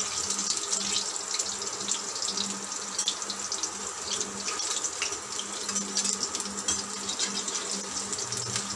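Battered bottle gourd (lauki) pakoras shallow-frying in hot oil in a steel kadhai: a steady sizzle full of fine crackles.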